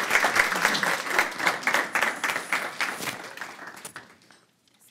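Audience applauding, the clapping thinning out and fading away about four seconds in.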